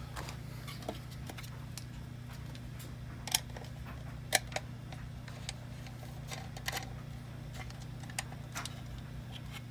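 Small clicks and taps of a screwdriver and screw against a hard plastic droid dome as it is handled and worked on, two sharper clicks about three and four seconds in, over a steady low hum.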